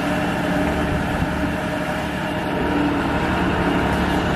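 Fishing boat's motor running steadily under way, an even hum with a low rumble underneath.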